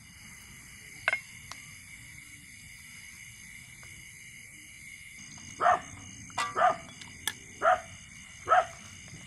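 A dog barking repeatedly, about once a second, from about halfway through, after a single sharp click about a second in.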